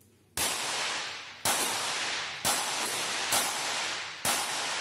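Series of five .22 Short rapid fire pistol shots about a second apart, each sharp crack trailed by a long echo under the range roof.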